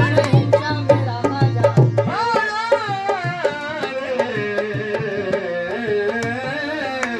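Qawwali music: harmonium chords, a voice singing with wavering vibrato lines, and hand-played dholak drums keeping a steady beat.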